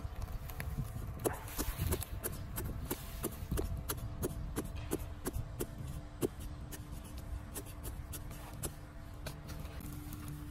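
Hands handling dry soil, leaves and a metal pipe in a planting hole: many small irregular clicks and crackles over a low rumble.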